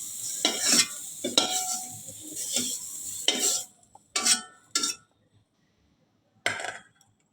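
Vegetables sizzling in hot oil in a pan while a spatula stirs them, scraping against the pan every second or so. The sizzle cuts off about three and a half seconds in, leaving a few separate scrapes with quiet between.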